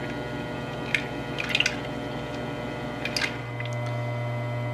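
Electric overhead mixer running with a steady low hum while its shaft stirs a tank of wastewater, with a few faint splashes and drips from the churning water. About three seconds in the hum becomes smoother and steadier.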